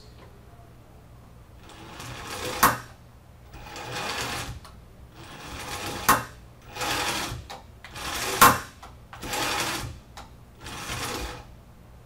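Small electric gearmotor driving a robot arm in short runs of about a second, seven times, each run stopping short as the arm reaches a contactless limit switch while under direct-voltage control. Three sharp knocks stand out, the loudest about eight seconds in.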